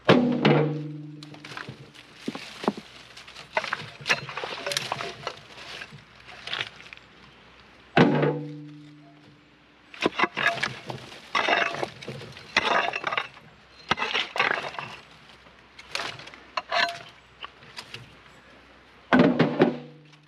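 Long steel bar striking and prying creek rocks: three heavy blows, at the start, about 8 s in and near the end, each leaving the bar ringing with a low hum that dies away, with quicker clinks and knocks of steel on stone between them.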